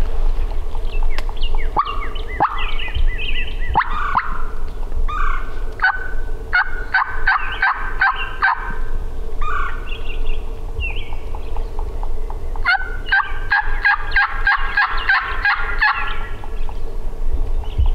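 Turkey calling: a few falling, sliding notes, then two runs of rapid, evenly spaced notes, the second and longer one near the end.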